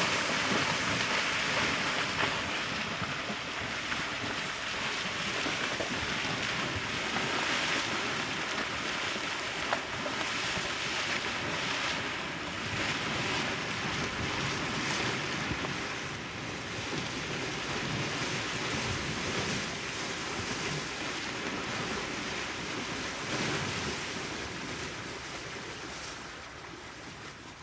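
Asian elephants splashing and wading through a shallow pool: continuous sloshing and spraying water that fades near the end as they climb out onto the bank.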